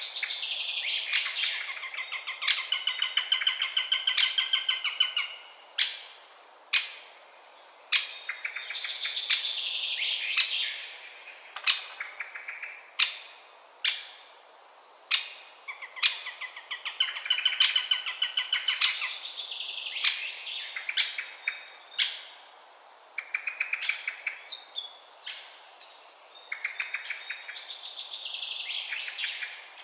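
Eurasian sparrowhawk calling in bouts of rapid, chattering repeated notes, each run lasting a second or several, with sharp clicks scattered among them.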